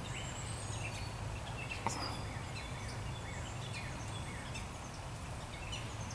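Faint woodland birdsong, short high chirps and whistles scattered throughout, over a steady low rumble.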